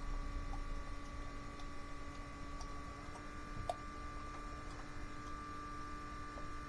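Faint steady hum holding several fixed tones over a low rumble, with a few faint scattered ticks.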